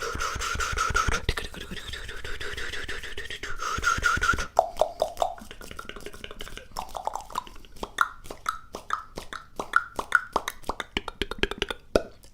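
ASMR trigger sounds, close and crisp: a dense run of fast clicks over a ringing tone for about four seconds, then separate sharp clicks or taps, several with a short pitched ring.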